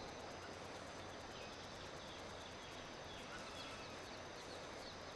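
Quiet natural outdoor ambience: a steady low hiss with a few faint, short high chirps.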